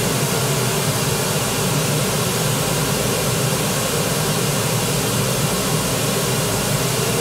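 Pink noise test signal playing steadily from the left speaker of a studio monitor pair, used to calibrate the monitor's level; it measures about 76 dB SPL at the listening position.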